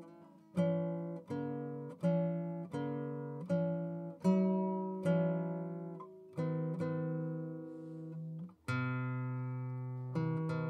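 Acoustic guitar music: slow plucked notes and chords, one about every three-quarters of a second, each ringing and fading before the next. A fuller chord rings longer near the end.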